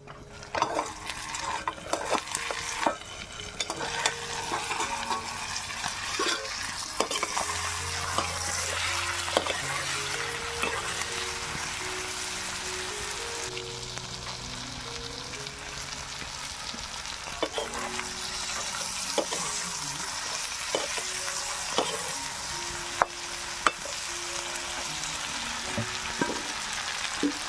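Chicken gizzards and liver with tomato sizzling steadily in a black wok while being stirred, a utensil clicking and scraping against the pan again and again. A soft melody of background music runs underneath.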